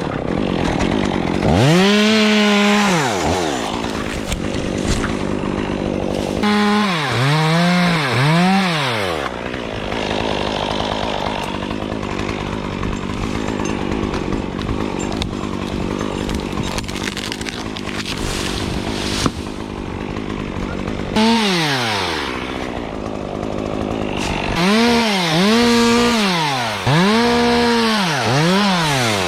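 Chainsaw engine revved up and down repeatedly in quick blips, with a long steadier stretch of running in the middle.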